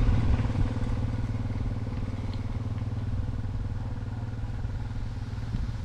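Motorcycle engine running steadily at an even pitch, close by.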